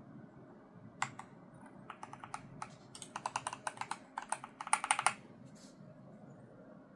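Typing on a Logitech G Pro X TKL Rapid keyboard with Hall-effect magnetic linear switches: a couple of keystrokes about a second in, then a quick run of key clicks that grows loudest near the middle and stops about two-thirds of the way through.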